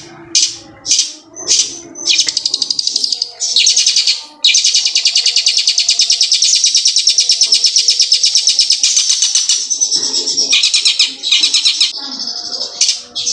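Caged long-tailed shrike (cendet) singing loudly in high, sharp notes, mimicking the song of a ciblek gunung (prinia). Short calls and quick runs come first, then from about four seconds in a long fast trill of rapidly repeated notes lasts some five seconds before breaking back into short calls.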